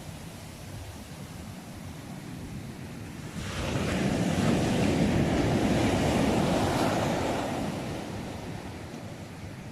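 Sea waves: a low steady rumble of surf, then about three and a half seconds in a wave breaks and washes in with a louder hiss, fading away over the next few seconds.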